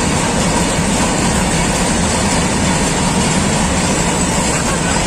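Freight train of open-top wagons rolling past at speed: a loud, steady rumble of steel wheels on the rails.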